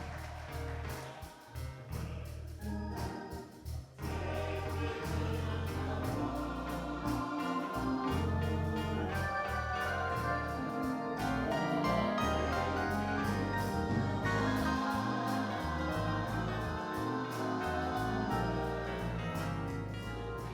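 Gospel music with singing and organ accompaniment over a steady bass line. It is thinner for the first few seconds and fills out about four seconds in.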